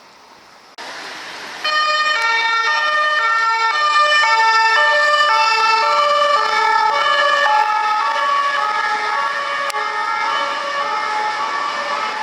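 French police two-tone siren ("pin-pon") sounding loud as the car passes close, alternating between a low and a high note about every half second over traffic noise. It comes in sharply about a second in and is at full loudness from just under two seconds.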